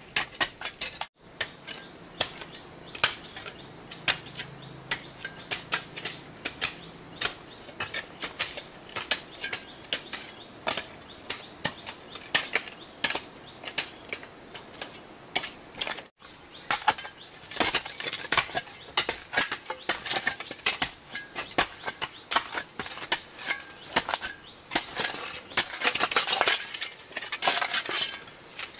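A rapid, irregular series of sharp clicks and knocks, busiest near the end.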